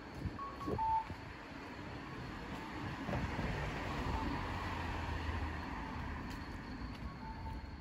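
A car driving past on the street, its tyre and engine noise swelling about three seconds in and fading away toward the end. Short high beeps sound in the first second.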